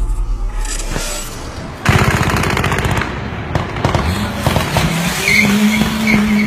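A brief music sting, then about two seconds in heavy automatic gunfire starts: rapid bursts of shots that thin out into scattered shots, with a pitched hum rising and then holding steady under them later on.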